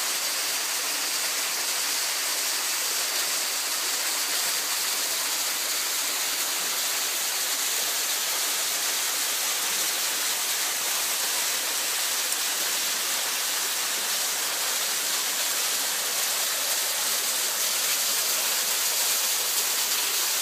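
Thin waterfall splashing steadily down a rock face onto rocks and into a pool: a constant, even hiss of falling water.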